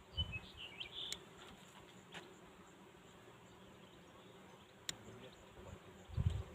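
Bees faintly buzzing among lavender flowers, with a few brief high chirps in the first second and occasional sharp clicks and low bumps.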